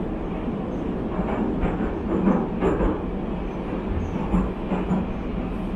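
Metro train running through a tunnel, heard from inside the passenger car: a steady low rumble of wheels and motors with occasional clacks from the track.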